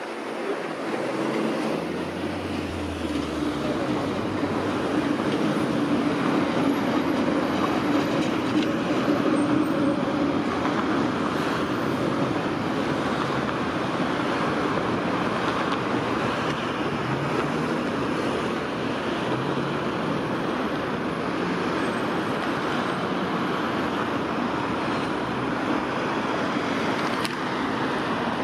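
V3A-2S-93 tram running on street track amid city traffic noise. The sound comes up about a second in and stays steady, loudest in the first half.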